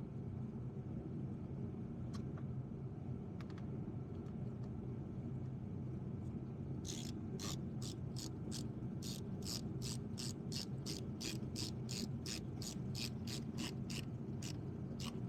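Ratchet wrench clicking in a quick, even run of about three clicks a second, starting about seven seconds in, over a steady low hum.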